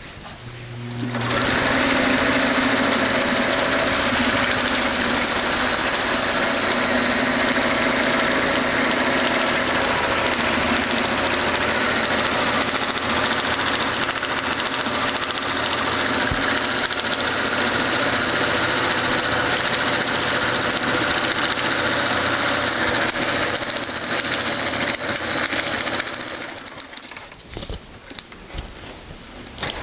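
Electric household sewing machine running steadily as it stitches a seam through layered heavy silver tarp. It starts about a second in and stops a few seconds before the end.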